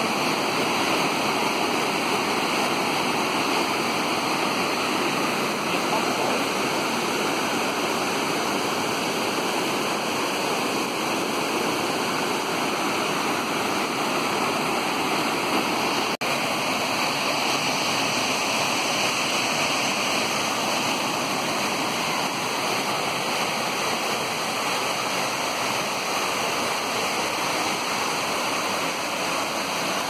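Waterfall pouring over rock into a pool: a steady rush of falling water, broken by a momentary dropout about halfway through.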